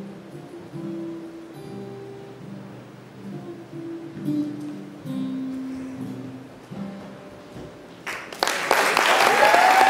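Two guitars, an electric guitar played flat on the lap and an acoustic guitar, playing slow, sparse held notes of a blues tune. About eight seconds in, the audience breaks into loud applause, with a whoop.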